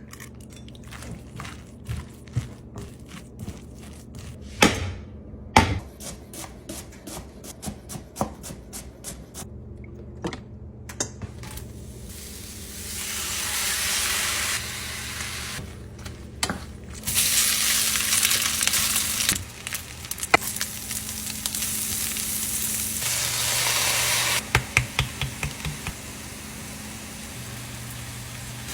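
Kitchen cooking sounds: a string of light clicks and knocks of utensils during the first half, then food sizzling in a hot pan in several loud stretches of a few seconds each, with a quick run of clicks near the end.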